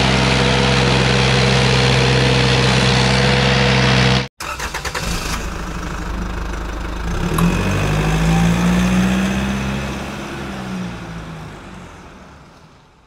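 Engine running steadily, cut off abruptly about four seconds in; then a second stretch of engine sound that rises in pitch and fades away.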